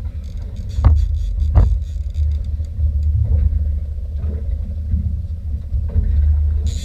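Low rumble of a fishing boat under way, with two sharp knocks about one and one and a half seconds in.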